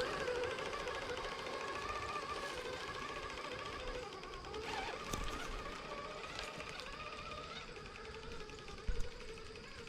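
Traxxas TRX-4 Sport RC crawler's electric motor and gear drivetrain whining steadily as it drives along the trail, slowly fading; a short knock about nine seconds in.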